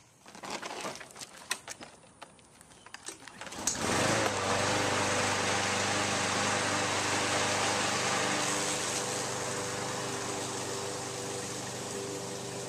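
Walk-behind power lawn mower starting after a few scattered clicks and knocks: the engine catches about four seconds in and then runs steadily, growing slowly fainter as it is pushed away.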